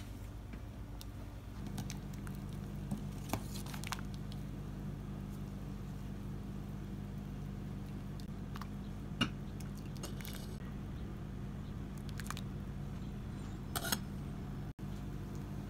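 A steady low hum that sets in after about a second and a half, with a few light clinks and scrapes of a utensil against a stainless steel pot.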